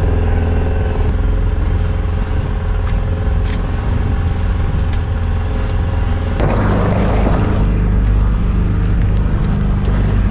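Small sailboat's outboard motor running steadily under way. About six seconds in, a wave splashes against the hull and the engine note shifts.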